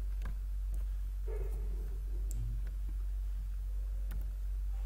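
A few scattered computer mouse and keyboard clicks over a steady low electrical hum from the recording setup.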